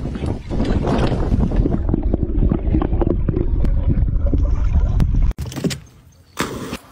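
Steady low rumbling noise with scattered knocks that cuts off suddenly about five seconds in. Near the end there is a brief splash as a dog lands in a lake.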